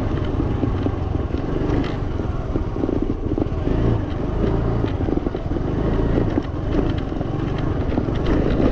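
Yamaha Fascino scooter's single-cylinder engine running steadily while riding, a continuous drone with rough road noise over it.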